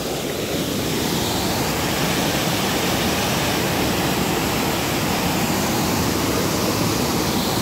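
Water pouring over a low concrete weir into the pool below: a steady, super loud rush that does not let up.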